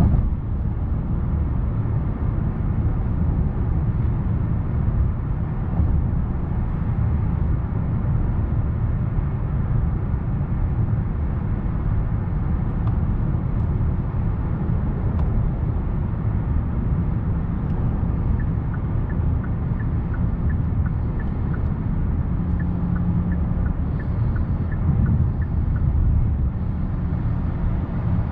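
Steady road and tyre rumble with the low hum of a Kia K8's 2.5-litre four-cylinder engine, heard inside the cabin cruising at about 100 km/h in eighth gear. A faint, even ticking sounds about twice a second for several seconds past the middle.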